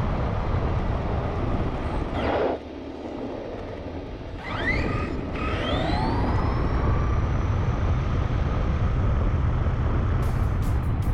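Onboard sound of an RC truck at speed: the electric drive motor whines, rising sharply in pitch as it accelerates about halfway through and then holding steady, over heavy wind and road rumble on the truck-mounted GoPro.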